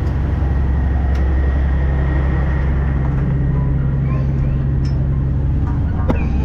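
A fishing boat's engine running with a steady low drone. There is a single sharp click about six seconds in.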